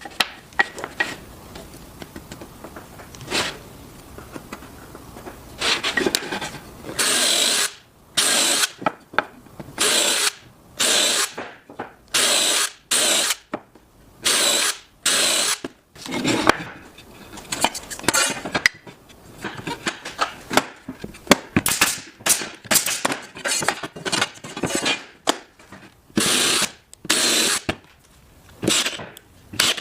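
A trim router and other power tools cutting wood in many short bursts, each about half a second to a second and a half long, with brief pauses between.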